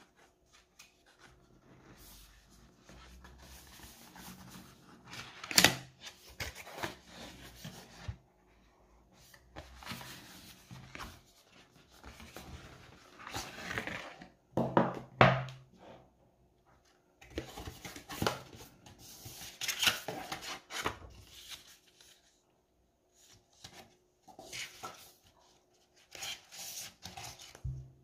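Watch packaging being handled and opened by hand: irregular rubbing, sliding and scraping of box and wrapping, with a couple of sharper knocks and pauses between bursts.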